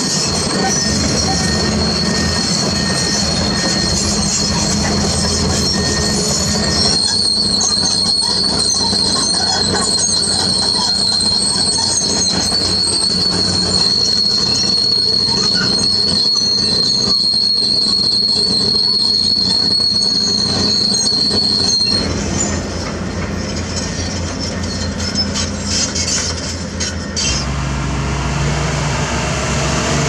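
Steel crawler tracks of heavy excavators and a dozer squealing with a steady high tone as they travel, over the rumble of diesel engines. For the last several seconds the squeal stops and a heavy diesel engine runs.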